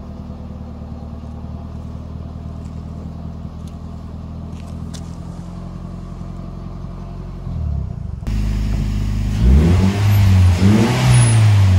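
Turbocharged Toyota Yaris 1NZ-FE 1.5-litre four-cylinder, fitted with a K04 turbo, idling steadily. About eight seconds in, inside the cabin, it is revved hard several times, pitch rising and falling, with a rushing hiss near the end.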